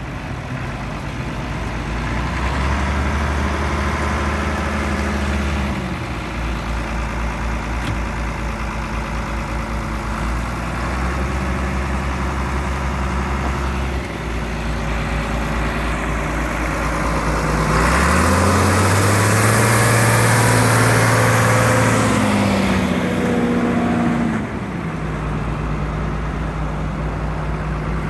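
Hesston 130-90 tractor's six-cylinder diesel engine running, its speed raised and lowered several times. The longest and highest rev comes about eighteen seconds in, and the engine drops back to a steady idle near twenty-four seconds.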